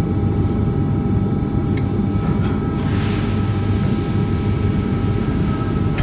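CNC press brake running while bending 12 mm stainless steel rod: a steady low hum with faint high whining tones, and a few light clicks.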